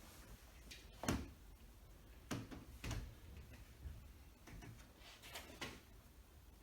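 Scattered knocks and clunks of a heavy glass shower-door panel being handled and set into its pivot and frame. The loudest knock comes about a second in, with a few softer bumps spread over the rest.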